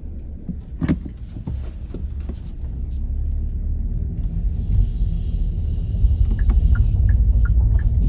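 Inside a Kia K3 moving slowly, a low engine and road rumble that grows louder partway through. From about six seconds in, a quick, even ticking comes in at about three ticks a second.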